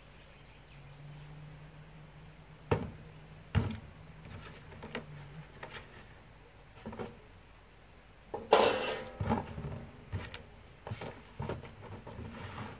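Orange plastic chainsaw handle and housing parts being handled and set down on a table: scattered knocks and clicks, with a louder clatter about two-thirds of the way through.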